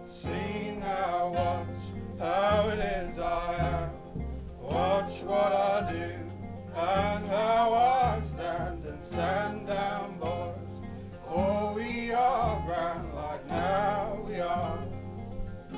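Acoustic folk band playing live: an Admira nylon-string classical guitar with bass notes stepping underneath and a wavering melody line in phrases of about two seconds over the top.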